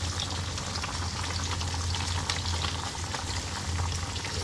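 Small fish frying in oil in a wok, a dense steady crackle, together with a pot of soup boiling hard on the next burner, over a steady low hum.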